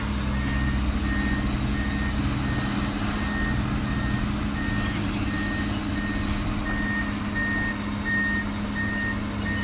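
Backup alarm on heavy machinery beeping steadily, about two evenly spaced beeps a second, over the steady running of a diesel engine.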